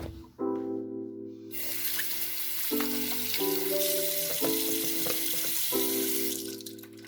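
Water running from a tap, a steady hiss that starts suddenly about a second and a half in and stops about six seconds in, over background music of soft sustained chords.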